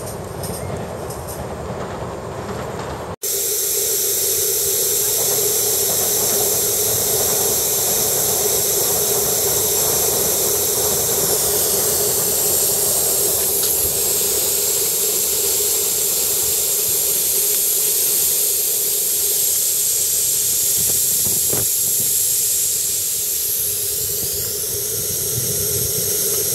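Live-steam model of a Bavarian S 2/6 locomotive: a few quieter seconds of it running on its track, then a loud, steady hiss of escaping steam starts about three seconds in and holds.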